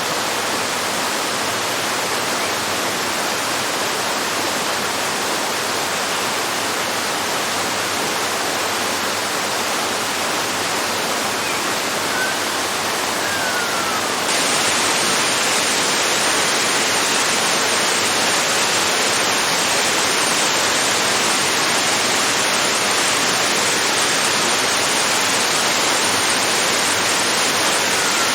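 Small garden waterfall splashing in a steady rush, which turns abruptly louder and brighter about halfway through. A couple of faint short bird chirps sound over it.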